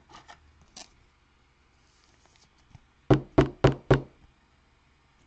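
Four quick, sharp knocks about a quarter of a second apart, a little past the middle, after a few faint clicks in the first second.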